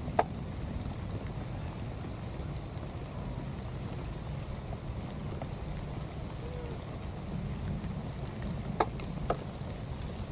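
Light rain falling, with a steady low rumble of wind on the microphone and scattered faint ticks of drops. A sharp click comes just after the start and two more come close together near the end.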